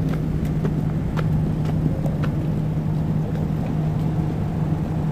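Fire truck engine running with a steady low drone, with scattered light clicks and knocks over it.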